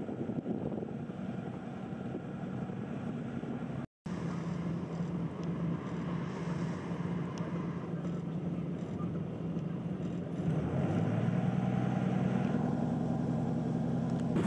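An engine running steadily with a low hum. There is a brief dropout about four seconds in, and the engine note deepens and grows a little louder about ten seconds in.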